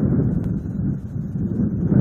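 Wind buffeting the nest camera's microphone, a steady low rumble that swells and dips in gusts.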